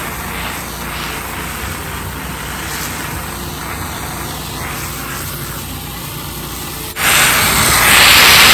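Pressure washer running steadily while the concrete diesel pad is rinsed, with the spray hissing. About seven seconds in, a much louder rushing hiss starts suddenly and lasts about a second and a half.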